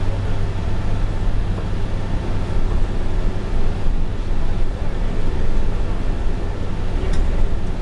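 A New Flyer Invero city bus heard from inside while cruising at highway speed: a steady low engine and drivetrain drone under constant road and tyre noise.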